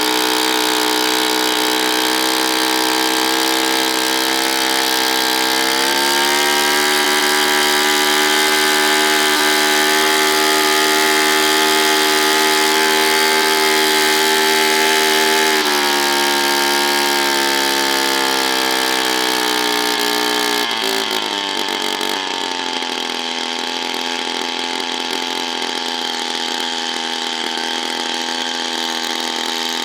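A motor running steadily at a loud level. Its pitch rises about six seconds in, eases down around the middle and drops lower a little past two-thirds of the way through.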